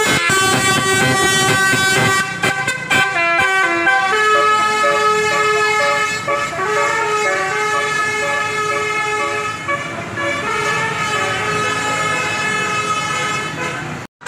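Basuri telolet bus horn, a multi-tone horn playing a tune of stepped notes: quick changes of pitch for the first few seconds, then longer held notes. It cuts off sharply near the end.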